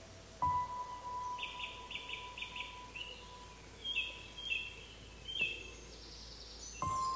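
Woodland songbirds singing: quick runs of short high notes and chirps. Under them is a soft held tone from background music, which comes in with a low thud about half a second in and again near the end.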